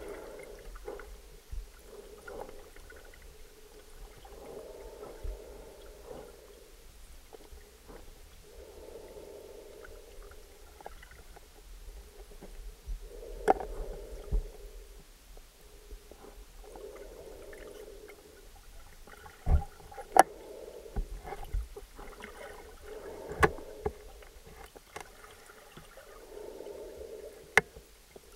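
Muffled underwater sound picked up through a camera housing: a low gurgling that swells and fades every three to four seconds, with a few sharp knocks and clicks.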